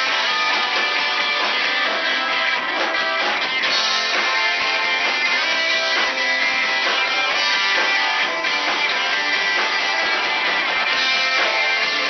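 Live rock band playing loud and steady: electric guitars over a drum kit, picked up by a small camera's microphone close to the stage.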